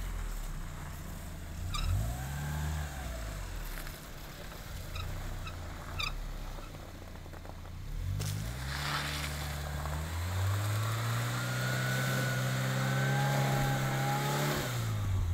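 Mazda Miata's four-cylinder engine revving in the snow, the driver slipping the clutch: the revs rise and fall a few times, then are held higher for about five seconds before dropping near the end.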